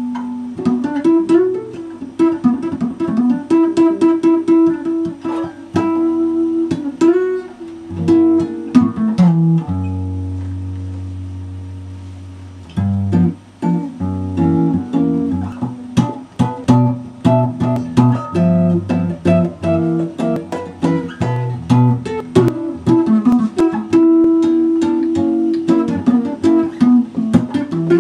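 Solo guitar played chord-melody style, chords and a single-note lead line picked together. About ten seconds in, one chord is left ringing and fading for a couple of seconds before the picking resumes.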